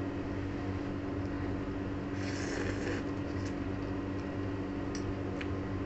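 Steady hum of a wall-mounted air conditioner. A short hissing noise comes about two seconds in, and a few light clicks near the end.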